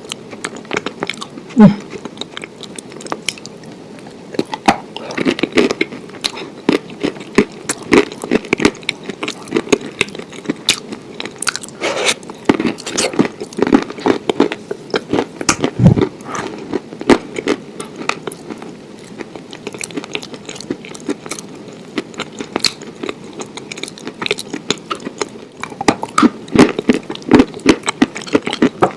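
Close-miked eating: a person biting into and chewing crunchy food, with irregular crunches throughout and two louder bites, one about two seconds in and one a little past halfway.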